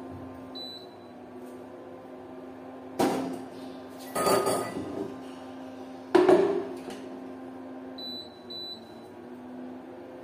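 Metal cookware clanking as a pressure cooker is handled and set down on an induction cooktop, with three knocks about three, four and six seconds in, the last the loudest. The induction cooktop's controls beep once near the start and twice about eight seconds in, over a steady low hum.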